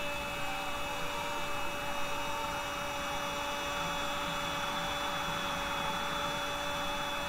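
A Spanish-language football commentator's long held 'gooool' cry, one unbroken note, over a stadium crowd roaring at a goal.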